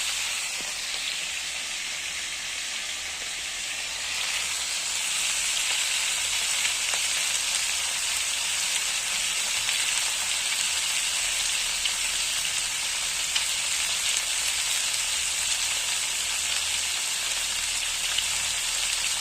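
Pieces of a large fish frying in hot oil in a pan, a steady sizzle that grows louder about four seconds in.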